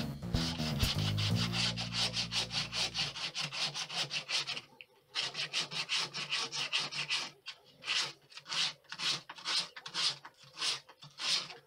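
Hand-sanding the inside of a wooden scroll-saw bowl: quick back-and-forth rubbing strokes, about three a second, with a short pause a little before halfway.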